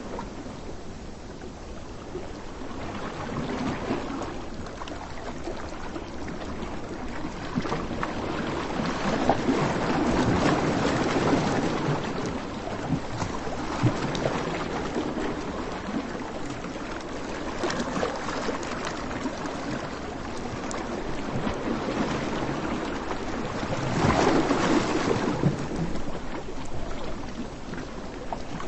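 Surf washing on a beach: a steady rushing noise that swells and fades slowly, with the biggest surges about a third of the way in and again near the end.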